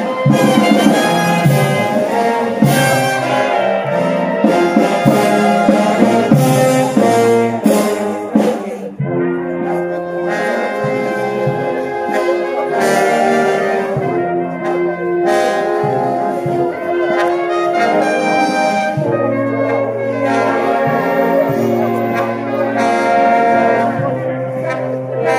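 Brass band with trombones and trumpets playing a procession march in long held chords. Percussion strikes land through roughly the first third, then drop away.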